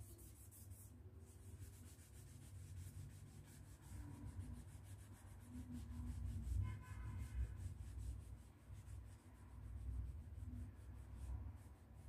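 Faint rubbing of an alcohol-dampened cloth scrubbed back and forth over a textured painted wall to lift crayon marks, over a low rumble.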